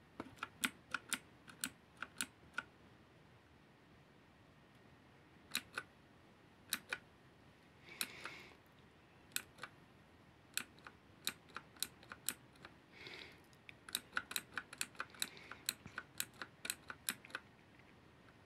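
Keys on a V900 mechanical keyboard being pressed, sharp clicks in irregular runs with short pauses between them. Two softer, half-second rushing noises come in between the runs.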